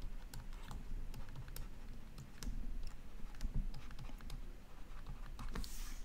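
Stylus tapping and scratching on a tablet screen during handwriting: a string of quick, irregular clicks, with a short hiss near the end.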